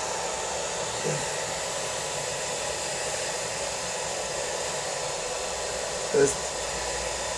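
Philips handheld hair dryer running steadily, a constant rush of air with a faint steady whine from its motor, as it blow-dries and shapes hair.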